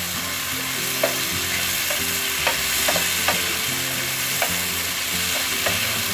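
Chilli chicken with capsicum and onion sizzling in oil in a non-stick wok while a spatula stirs and mixes it, with sharp irregular clicks as the spatula knocks against the pan.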